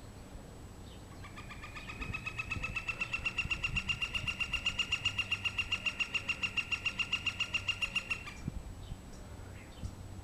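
Woodpecker calling: one long, rapid series of evenly spaced, high, ringing notes, about seven or eight a second. It starts about a second in, rises a little in pitch at first, and stops after about seven seconds.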